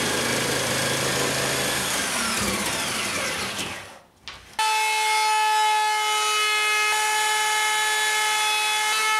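Jigsaw cutting through an MDF bench top, then winding down with a falling pitch about two seconds in. After a short gap, about four and a half seconds in, a handheld router starts with a steady high whine, trimming the cut edge flush.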